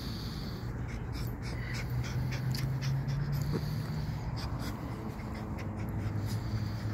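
Small dog panting while it rolls on its back in the grass, with scattered short rustles, over a steady low hum.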